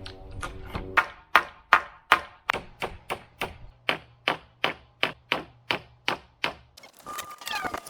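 Hammer striking a nail, a quick even run of about three blows a second that stops about a second before the end.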